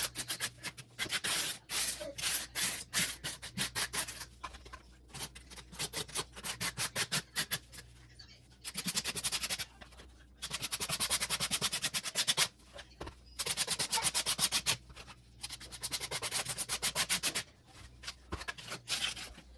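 Rapid back-and-forth scrubbing strokes on a hard surface, about five or six a second, in runs of a few seconds with short pauses between them.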